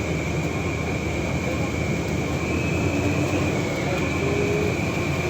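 Heavy truck's diesel engine labouring on a steep climb: a dense, steady low rumble with a steady high whine over it.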